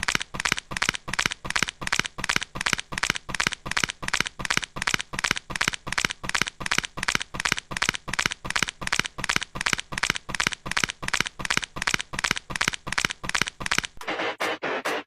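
A rapid, even series of short harsh noises, about four a second, repeated over and over like a looped added sound effect; it stops about fourteen seconds in.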